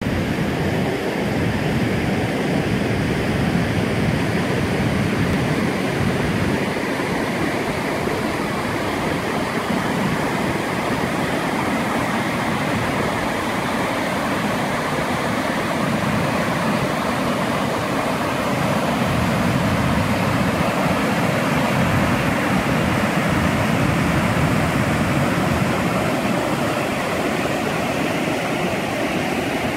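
Whitewater River rushing over rocky rapids: a steady, loud wash of white water with an uneven low rumble underneath.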